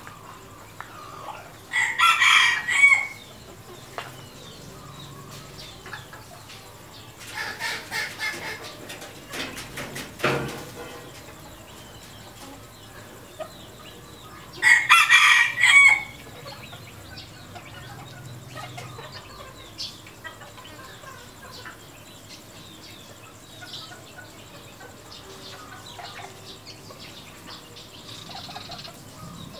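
Red junglefowl roosters crowing: two loud, short crows, about 2 and 15 seconds in. Softer calls come between them, around 7 to 9 seconds in, and a single sharp knock near 10 seconds.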